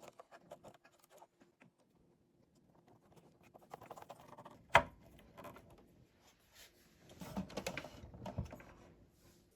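Light clicks, taps and rattles of amplifier parts being handled and fitted back together, with one sharp click about halfway through and a busier run of clicking in the last few seconds.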